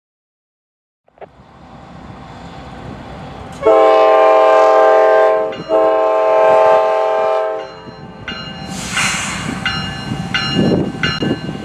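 Diesel freight locomotive approaching and sounding its multi-chime air horn in two long blasts with a short break between, followed by the rumble and clatter of the train's wheels as it passes.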